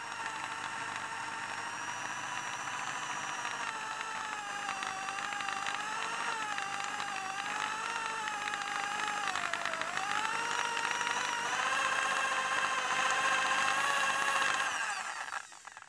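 Electric hand drill with a 5 mm bit running into a steel wheel nut on an alloy rim, drilling out a nut that turns with its stripped stud. The motor's whine wavers and sags in pitch under load about ten seconds in, picks back up, then stops about a second before the end.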